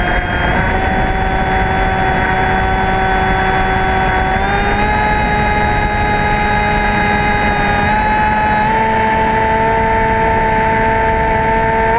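Electric motor and propeller of a Hobbyking Bixler RC plane whining steadily in flight, heard from the camera on its nose, over wind rushing past the microphone. The pitch dips slightly just after the start and steps up about four and a half and nine seconds in, as the throttle changes.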